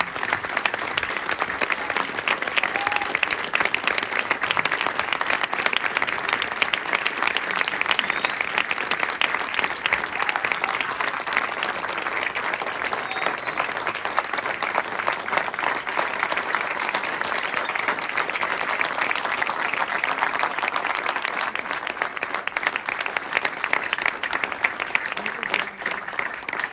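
Audience applauding steadily: a long, dense round of clapping from a large theatre crowd.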